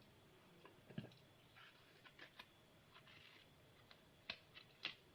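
Faint, scattered taps and clicks of objects being handled, with a soft knock about a second in and two sharper clicks near the end.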